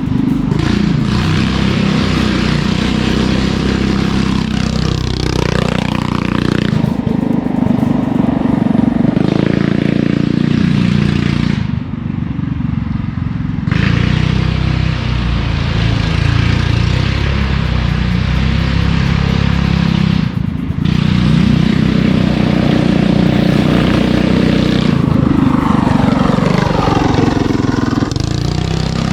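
Go-kart's small engine revving up and down as the kart is driven on its test run, its pitch rising and falling again and again. The throttle drops off briefly about twelve seconds in and again around twenty seconds.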